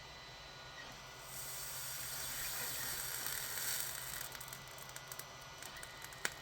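Flux sizzling as a hot soldering iron presses fluxed solder wick onto a solder joint. A hiss starts about a second in and lasts about three seconds, then gives way to scattered small crackles.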